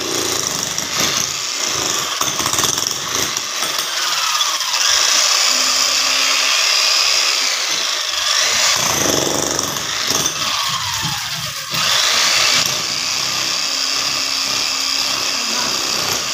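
Handheld demolition hammer chiselling into hard adobe ground, running continuously with a steady loud hammering noise.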